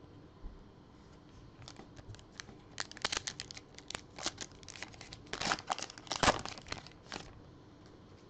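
A trading-card pack of 2019-20 NBA Hoops Premium Stock being torn open by hand, its wrapper ripping and crinkling in a run of sharp crackles. The crackles start about a second and a half in, are loudest about six seconds in, and stop shortly after seven seconds.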